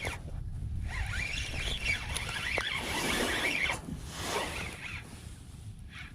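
Fishing reel being cranked against a hooked fish, a squeaky whirring that runs in spells and stops around five seconds in, over a steady rumble of wind on the microphone.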